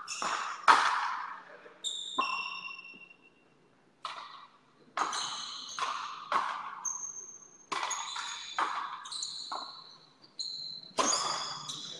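A frontenis rally: the rubber ball struck by rackets and smacking off the concrete frontón wall and floor, about a dozen sharp cracks, each with a ringing echo. Short high-pitched tones sound between some hits, with a brief lull about three seconds in.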